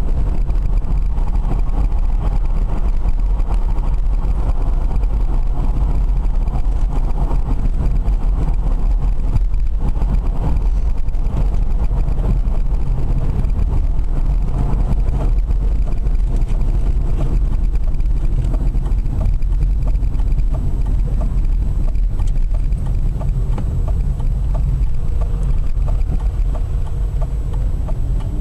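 Steady low road rumble and wind noise from a BMW converted to electric drive cruising along, with no engine note.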